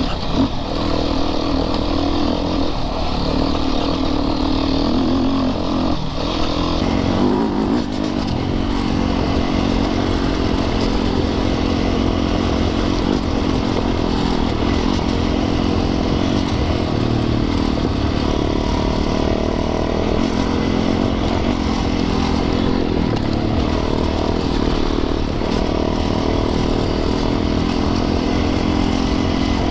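Yamaha YZ450FX's single-cylinder four-stroke engine running on an off-road trail ride, its pitch rising and falling with the throttle and shifting around seven seconds in.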